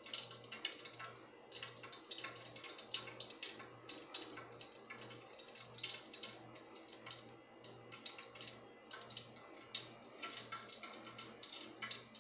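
Hot cooking oil crackling and spitting in a pan, a faint, dense, irregular crackle, with a low hum pulsing about one and a half times a second underneath.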